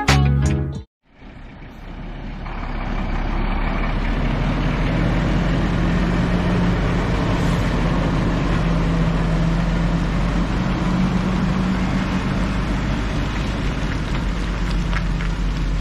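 Loaded Renault log truck's diesel engine running steadily as it pulls away through mud. Music cuts off about a second in, just before the engine sound comes up.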